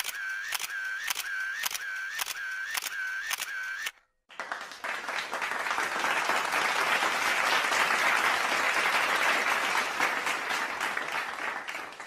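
Camera shutter firing in rapid succession, about three shots a second, each click with a short whine, for about four seconds. After a brief pause, applause builds up and then fades away near the end.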